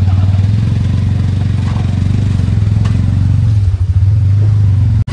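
Motorcycle engine running steadily with an even low pulse, briefly faltering about three and a half seconds in before picking up again.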